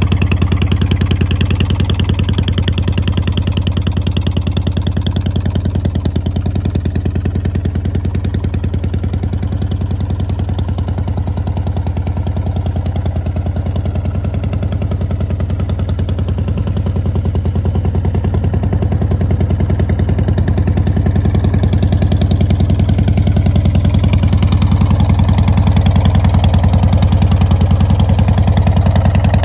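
The S&S 117-cubic-inch V-twin of a Big Dog Ridgeback chopper idling steadily, growing louder near the end.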